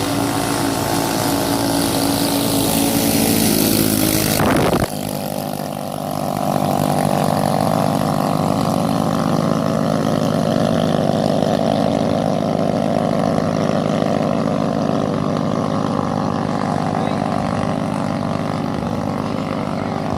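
Small racing-boat engines of the 7 hp-and-up class running flat out, a loud steady engine drone. The sound changes abruptly about five seconds in, then the drone carries on.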